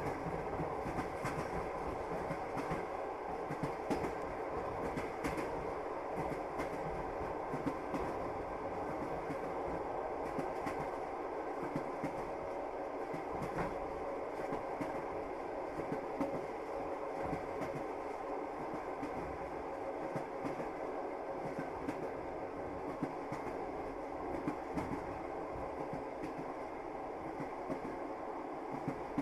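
A train running along the track: a steady rumble with scattered clicks and knocks of the wheels on the rails.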